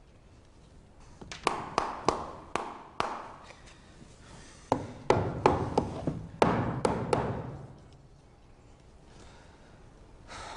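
A series of sharp taps and knocks, each with a short ring after it, coming in two irregular clusters.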